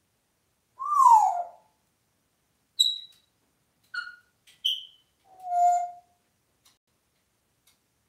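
African grey parrot whistling: a loud falling whistle about a second in, then three short high chirps, and a held lower whistle a little before six seconds in.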